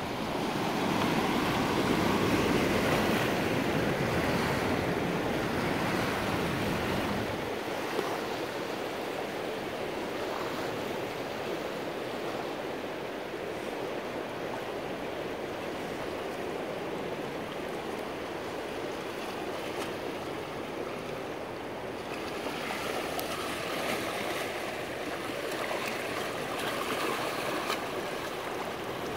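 Dam tailwater rushing and splashing against the rocks of the riprap bank in a steady wash. It is louder and fuller for the first seven seconds or so, then settles to a steadier, slightly quieter rush.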